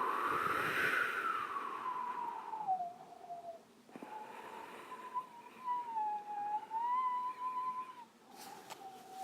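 A high, wavering sustained tone over a hiss. It rises and then falls in the first few seconds, breaks off, and comes back twice for long stretches.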